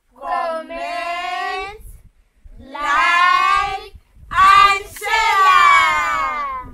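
Children and women singing out together in long held notes, about four drawn-out phrases, the last falling away in pitch.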